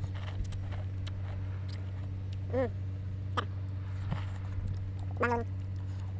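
Close-up eating sounds of noodles being slurped and chewed: wet smacking and clicking mouth noises, with two short hummed notes about two and a half and five seconds in, over a steady low hum.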